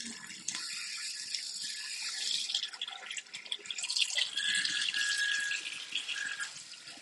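Water running from a tap opened only about 10%, a steady hiss. A faint whistling tone joins in for about a second past the middle.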